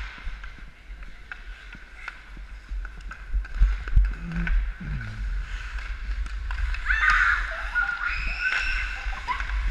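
Ice hockey play heard from a skater's own camera: skate blades scraping the ice and sharp clicks of sticks and puck over a steady low rumble from the moving camera. High voices call out from about seven seconds in.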